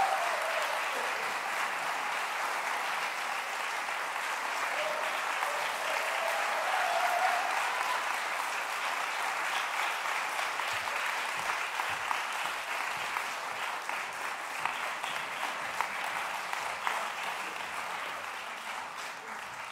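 Concert-hall audience applauding steadily, with a couple of short shouts in the first half. The applause slowly dies down toward the end.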